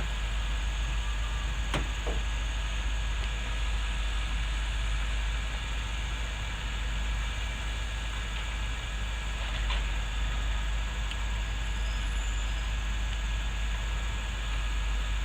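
Backhoe's diesel engine running steadily with a low rumble, with a couple of brief clicks.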